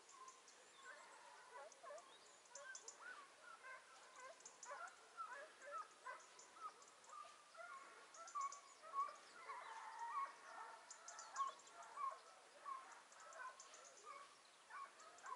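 A pack of hare hounds baying in the distance as they trail a hare: many short, faint, overlapping yelping calls, thickest and loudest in the middle and latter part.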